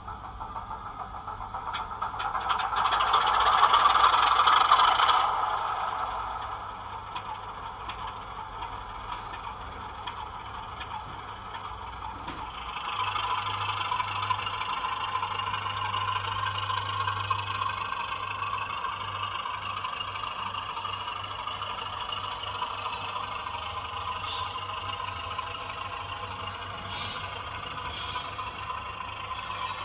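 Model-railway DCC sound decoder playing a British Rail Class 33 diesel locomotive sound file: the locomotive's Sulzer diesel engine runs with a loud surge over the first five seconds, then settles to steady running. About twelve seconds in it steps up to a higher, steady level.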